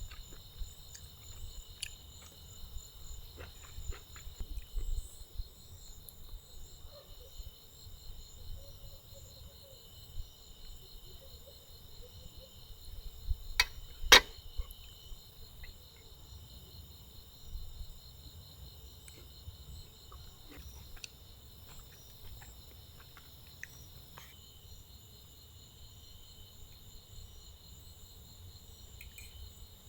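Steady outdoor insect chorus: several high-pitched, finely pulsing trills layered together without a break. A low rumble runs underneath with scattered small clicks, and one sharp click about fourteen seconds in is the loudest sound.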